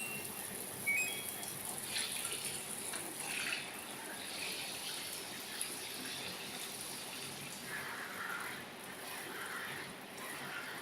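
Water running and splashing over a front-load washing machine's touch control panel, in a test that the panel is waterproof.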